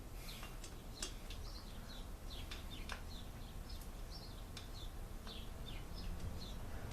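Small birds chirping: short, high, falling chirps repeat irregularly, at times several a second. A few light clicks and a low steady hum sit underneath.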